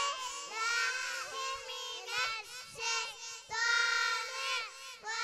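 Young children reciting together in unison into microphones, in a sing-song chant of short held phrases with brief pauses between them.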